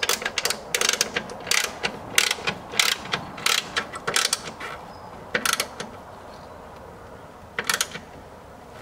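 Hand ratchet wrench clicking in short strokes as a strut-brace bolt is snugged down: a quick run of about two strokes a second, then two spaced single strokes later on.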